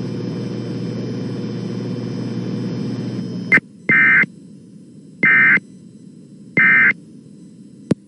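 Steady background hiss with hum, cut off by a click about three and a half seconds in. Then three short, loud bursts of buzzy digital data tones about a second apart: the Emergency Alert System's SAME end-of-message code that closes the alert.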